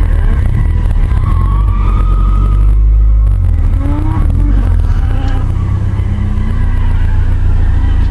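2006 Subaru Impreza WRX STI's turbocharged flat-four engine running with the car stationary, a heavy low rumble heard from inside the cabin. Its pitch rises and falls a few times from about halfway through.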